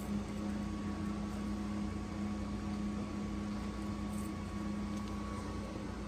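A steady low hum over an even rushing noise, unchanging throughout.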